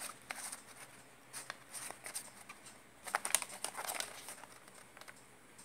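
Small cardboard-and-plastic earphone box handled and turned in the hand: crinkling and light clicks in short bursts, busiest about three to four seconds in.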